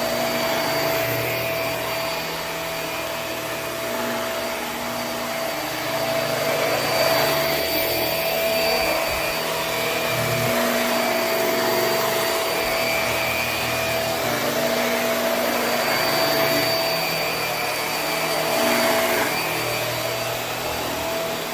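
Hoover High Performance Swivel upright vacuum cleaner running on carpet, a steady motor whine over airflow noise, swelling slightly every few seconds as it is pushed back and forth.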